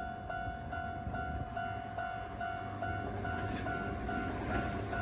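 Level-crossing warning bell ringing in a steady repeating two-tone ding, a little over two strikes a second. Under it, the rumble of an approaching Toyama Chihō Railway limited express train grows louder near the end.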